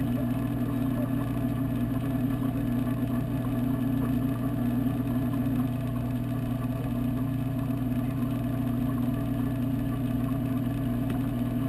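Steady low hum of aquarium pumps, heard underwater from inside the saltwater tank.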